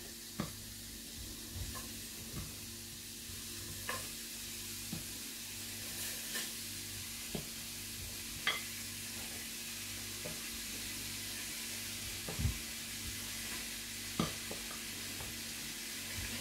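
Onion slices being set down one by one in a stainless steel skillet: soft, scattered taps and clicks every second or two over a steady hiss and a faint low hum.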